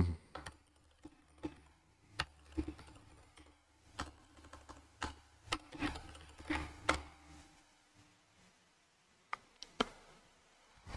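Typing on a computer keyboard: a run of irregular keystrokes for about seven seconds, then a pause and a few separate clicks near the end.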